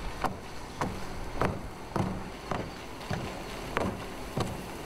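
Tyres of a Ford Explorer prototype SUV thumping over the joints of a concrete-slab test road, nearly two even thumps a second, over steady tyre and wind noise.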